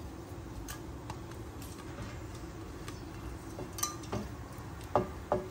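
Light clicks and taps of a spatula against a nonstick frying pan as whole spices are pushed around in the oil, with two sharper knocks near the end, over a steady low hum.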